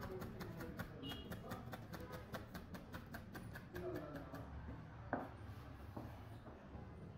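Chef's knife chopping a green vegetable on a plastic cutting board: a fast, even run of light knocks, about six a second, that stops about four and a half seconds in, followed by one louder knock. Faint music underneath.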